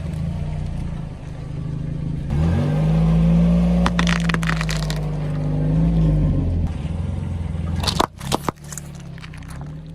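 Car engine running and revving up about two seconds in as the car rolls over objects under its tyres. Sharp crunching cracks come around four seconds in and again near eight seconds.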